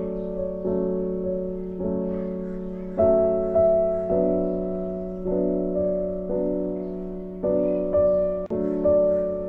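Background piano music: soft chords struck every half second to a second, each fading away before the next.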